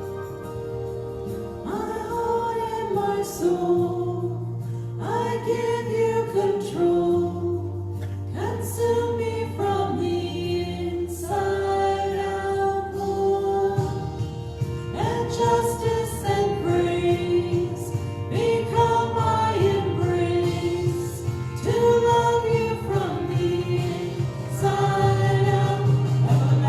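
Christian worship song: voices singing phrases over sustained instrumental backing. The singing comes in about two seconds in, and the low end of the accompaniment fills out about halfway through.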